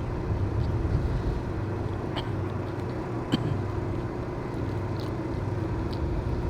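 A steady low engine hum with a faint steady whine over it, and a few light clicks and taps scattered through it.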